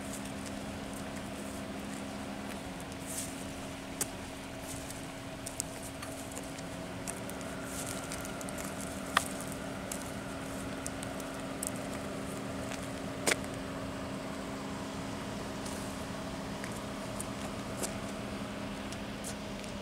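A steady low mechanical hum, like a motor running, with a few sharp clicks scattered through it.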